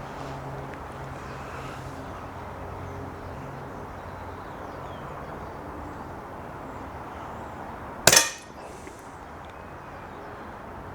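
A single shot from a Snowpeak PP20 .177 pre-charged pneumatic air pistol about eight seconds in: one sharp crack with a short ring after it.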